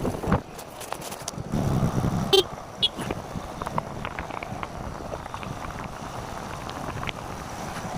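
Vehicle road noise, with a brief horn toot about two and a half seconds in.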